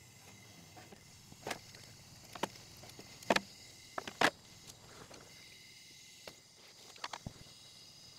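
About six sharp metallic clicks and knocks of hand tools and parts being handled at an open cylinder head's valvetrain, the loudest near the middle, over a faint steady hiss.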